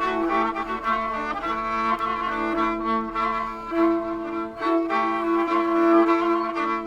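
Kamancha and rebab, two bowed spike fiddles, improvising together: low notes held steadily as a drone while a melodic line moves above them.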